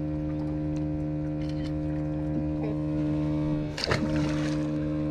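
Skiff's small outboard motor idling with a steady hum. There is one brief clunk about four seconds in.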